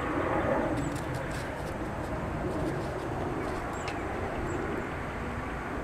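Steady outdoor background noise with a bird cooing, and a few faint light ticks of a screwdriver working a screw in a rifle's trigger assembly.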